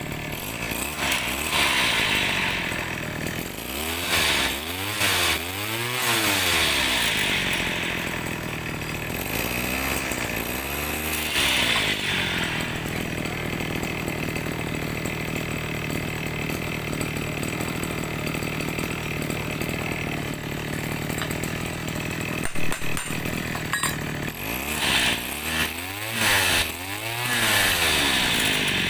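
Small two-stroke sprayer engine running, revved up and back down in short blips several times with a long stretch of steady idle in the middle.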